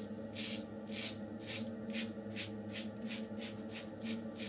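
RazoRock German 37 Slant safety razor scraping stubble through tallow soap lather on the neck in short repeated strokes, about three or four a second.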